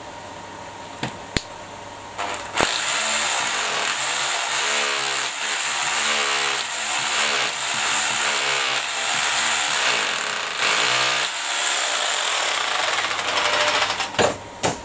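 Power tool running and grinding, starting about two and a half seconds in after a couple of clicks. Its pitch wavers as it is loaded, and it stops near the end with a couple of sharp knocks.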